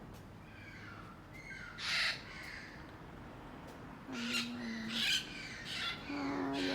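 Crows cawing and green parakeets squawking in a noisy mix of harsh calls, with one loud call about two seconds in and a cluster of calls from about four seconds on.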